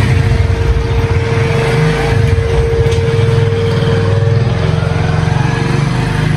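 A small engine running steadily, with a fast low pulsing and a constant hum.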